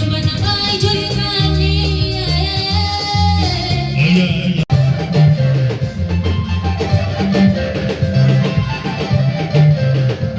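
Background music: a song with a sung vocal over heavy bass. About halfway through it cuts out for an instant, then carries on with drums and guitar and less voice.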